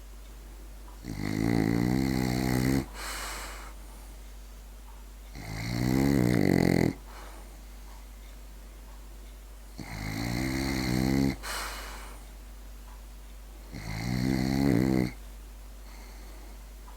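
French bulldog snoring: four buzzing snores about four seconds apart, each lasting about a second and a half, with a softer hissing breath just after the first and third.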